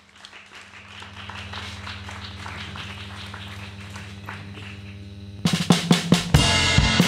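Instrumental theatre music: a drum roll building in loudness over a held low note, then the full band comes in loudly with heavy drum hits about five and a half seconds in.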